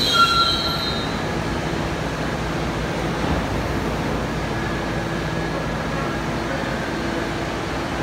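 R68A subway train coming to a stop: a high wheel squeal dies away within the first second. It is followed by the steady hum of the train standing at the platform.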